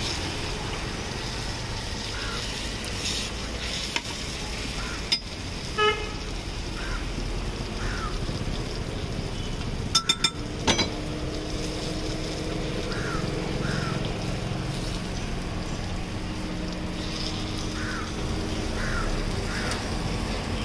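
Street traffic noise: a steady hiss with a short vehicle horn toot about six seconds in. A quick run of sharp clinks comes about halfway through, after which a low steady hum sets in.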